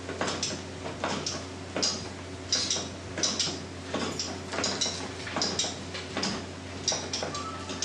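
Light, irregular clicking and ticking, roughly one or two clicks a second, from a small homemade beta-type Stirling engine's crank, flywheel and displacer linkage as it is worked by hand to get it running.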